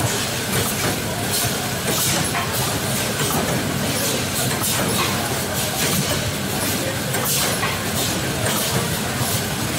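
Packing-line machinery in an ice cream factory running steadily, with a wire-mesh conveyor belt rumbling and light, irregular rattling and clatter over it.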